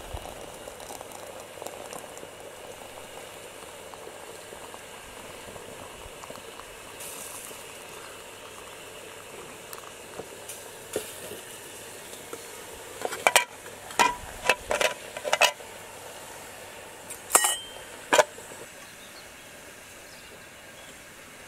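Hot water poured from a kettle into a metal teapot, a steady watery hiss. A quick run of sharp clinks comes about 13 to 15 seconds in, and two more follow near 17 and 18 seconds.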